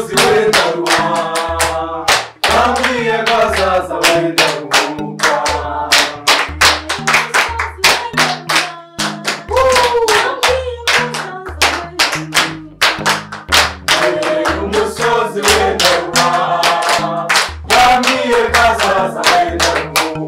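A group singing together with rhythmic hand clapping, over backing music with a stepping bass line.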